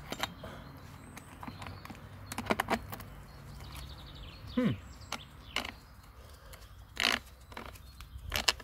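Scattered clicks and knocks of electric chainsaw parts being handled and fitted by hand during reassembly, with one short falling squeak near the middle.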